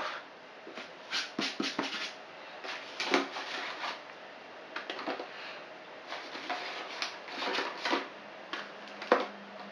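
Scattered light clicks and taps of button mushrooms being picked out of a plastic tray and set down on a plastic cutting board, with a kitchen knife in hand.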